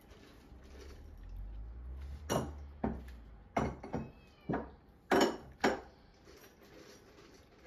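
A low rumble, then about seven sharp clicks and knocks, irregular and roughly half a second apart, over a few seconds.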